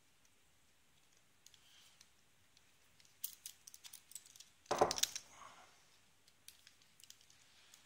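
Small metal clicks and taps from a padlock and a hex key being handled, with one short, louder metallic clatter about five seconds in.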